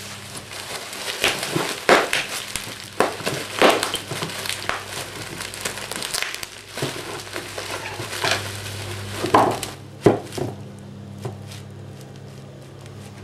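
Bubble wrap crinkling and crackling in irregular bursts as it is pulled off metal lathe parts by hand. The crackling dies down about ten seconds in, leaving a low steady hum and a few small clicks.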